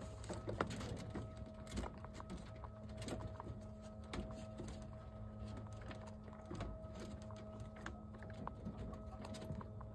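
Young rabbits eating pellets from a metal feeder in a wire cage: many small scattered clicks and crunches over a steady hum.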